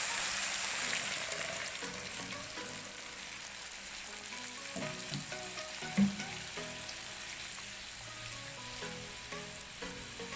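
Sizzling and crackling in a hot pan as spices dissolved in water are poured over the sautéed onions and tomatoes. The sizzle is loudest at first and dies down as the liquid settles, with a sharp knock about six seconds in.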